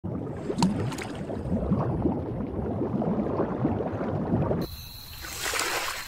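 Cartoon underwater sound effect: bubbling, gurgling water with two sharp clicks in the first second. It cuts off suddenly about four and a half seconds in, followed by a brief whoosh that swells and fades.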